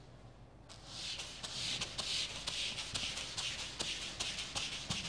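Handheld whiteboard eraser rubbed back and forth across a whiteboard: a rhythmic swishing about twice a second, starting just under a second in.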